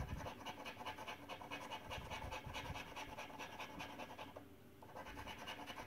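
A coin scratching the silver latex off a paper scratchcard in rapid back-and-forth strokes, faint, with a brief pause a little past the middle.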